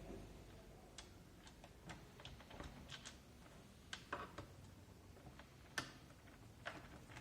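Faint, irregular light clicks and taps of small plastic and metal keyboard parts and screws being handled, a few a second, with slightly sharper ones about four and six seconds in.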